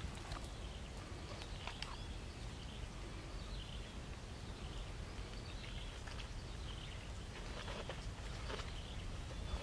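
Quiet outdoor ambience: a steady low rumble with faint bird chirps, and a few soft rustles and clicks from hands handling a raw chicken on lotus leaves.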